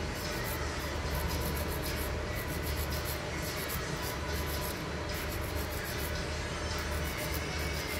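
Nail file rubbed back and forth along the edge of an artificial nail tip in quick, repeated strokes, over a steady low hum.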